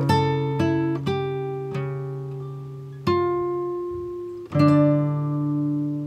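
Background music: an acoustic guitar picking slow notes and chords that ring out and fade, with the loudest chord about four and a half seconds in.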